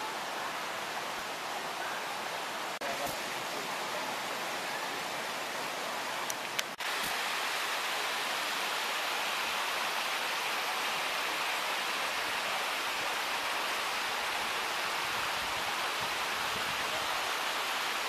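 Steady rush of falling water from a waterfall and cascade, an even hiss across all pitches. It breaks off briefly about 3 and 7 seconds in and comes back a little louder after the second break.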